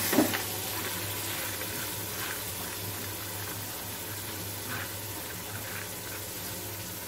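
Steady sizzling as wet, washed chana dal is tipped from a plastic colander into hot fried masala in an aluminium pressure cooker, with a sharp knock just after the start and a few faint ticks of falling lentils.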